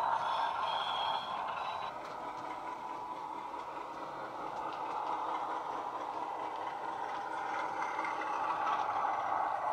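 A Heljan Class 33 model locomotive's DCC sound decoder plays a Coastal Class 33 diesel engine sound file through a 27 mm bass-enhanced speaker, the engine running steadily as the train moves, with a light rattle of the model's wheels on the track. A thin high tone sounds for the first couple of seconds. The sound drops away as the train goes round the curve and grows again towards the end as it comes back.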